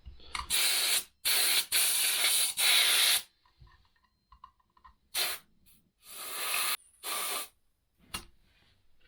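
A run of short hissing blasts from a pressurised nozzle. Four long blasts of up to about a second come in quick succession, then a few shorter, spaced-out blasts in the second half.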